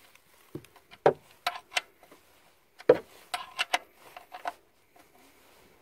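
A steel spanner clinking and tapping on a bolt under a car engine's oil pan, about ten irregular sharp metallic clicks as it is worked on the bolt.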